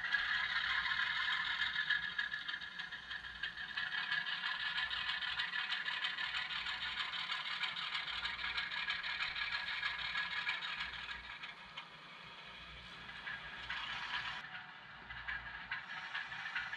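HO scale Atlas ALCO model diesel locomotive's factory sound decoder playing a running diesel engine through its small speaker as the train moves, with the light clatter of model wheels on track. It dips quieter about twelve seconds in.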